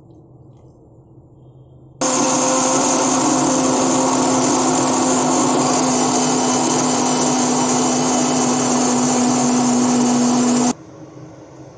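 Electric mixer grinder with a stainless-steel jar blending milk, banana, oats and nuts: the motor switches on abruptly about two seconds in, runs at one steady speed with a constant hum and whirr, and cuts off sharply near the end.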